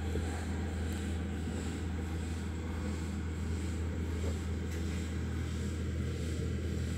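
A steady low machine hum that holds an even level throughout.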